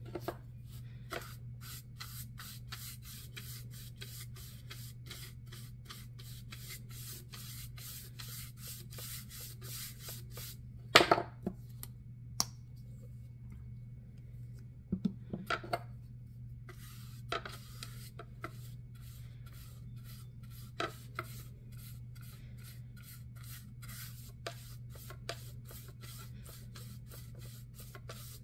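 A flat bristle paintbrush spreading white paint over a wooden plaque: a steady run of short brushing scrapes, about three strokes a second, pausing twice. A few sharp knocks stand out, the loudest about eleven seconds in, and a low steady hum runs underneath.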